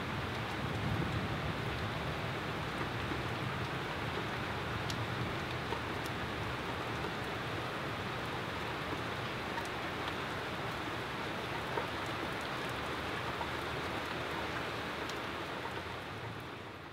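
Steady rain falling on tree foliage, an even hiss with a few faint drop ticks, starting to fade out near the end.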